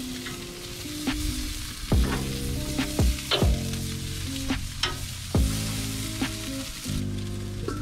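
Olive-oiled octopus sizzling on the hot grates of a gas grill, a steady frying hiss that dies down near the end, with background music and its bass beat underneath.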